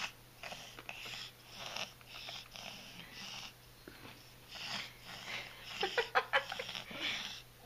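A baby's breathing and wet mouth sounds while she eats rice cereal from a spoon: soft, hissy breaths repeating every half second or so, then a short run of smacking clicks and little vocal bits about six seconds in.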